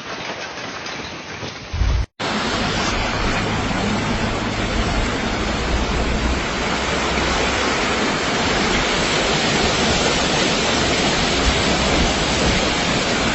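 Steady, loud rush of heavy rain and running water. It drops out for an instant about two seconds in, then comes back louder and even, with a low rumble underneath.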